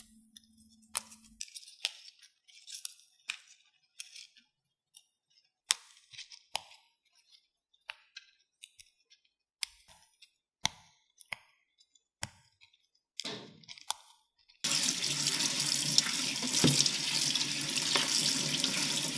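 Fresh Thai basil and mint leaves being plucked from their stems, heard as scattered small snaps and rustles. About fifteen seconds in, a kitchen tap starts running steadily as the leaves are rinsed in a plastic colander.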